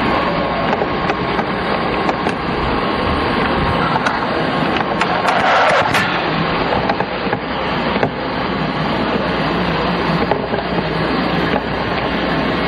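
Steady background noise from a camcorder's outdoor night recording, with a few faint clicks and a slightly louder stretch about five to six seconds in.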